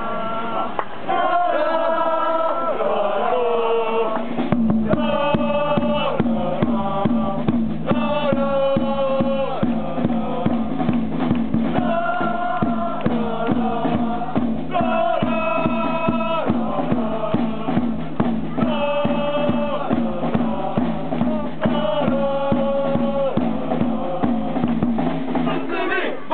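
Football supporters singing a player chant in unison: a short melodic phrase of mostly male voices sung over and over. A steady drumbeat comes in about four seconds in and keeps time under the singing.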